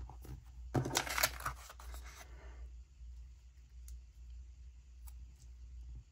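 Paper and sticker pieces rustling and crinkling for about a second and a half as they are handled, followed by a few faint clicks.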